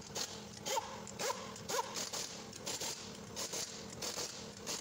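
Pneumatic impact wrench on a car's wheel lug nuts, fired in about nine short rattling blips, several with a brief rising whine as the air motor spins up.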